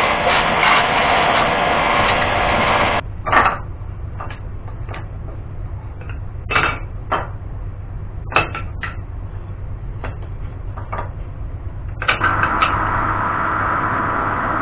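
Table saw running as wood is fed through it, cutting off abruptly about three seconds in. Wooden strips are then handled, making sharp knocks and clatter over a steady low hum, and near the end a drill press starts running.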